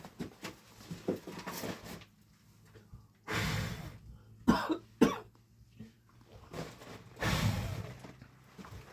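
A person coughing, several separate coughs spread over the stretch.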